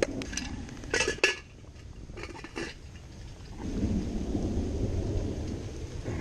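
Metal camp cookware clinking a few times, sharp knocks with a brief ring, then a low rumble of thunder lasting a couple of seconds over steady rain.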